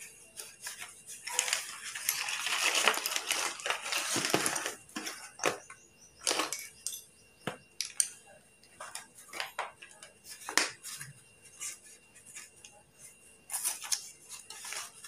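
Slate pencils rattling and clinking against each other as a small box of them is emptied onto a heap of loose slate pencils on a paper plate. There is a dense stretch of rattling a couple of seconds in, then scattered light clicks, with a short cluster again near the end.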